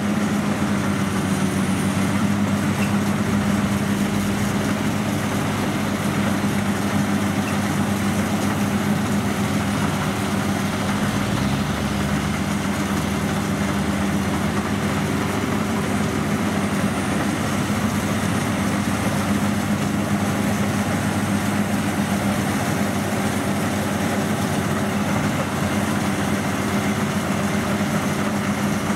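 World WD 102PRO rice combine harvester running steadily as it cuts through standing rice: a constant engine drone with a strong, steady low hum under the even noise of the working machine.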